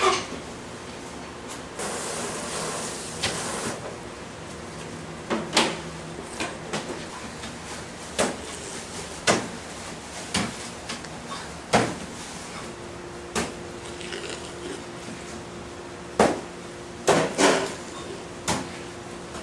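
Irregular knocks and clatters of kitchen handling, about a dozen spread through the stretch. There is a short hiss about two seconds in, and a faint steady hum that begins about two-thirds of the way through.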